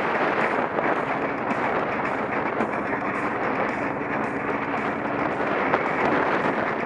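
Steady wind noise buffeting the microphone of an action camera on a moving motorcycle, with the bike's engine running underneath at cruising speed.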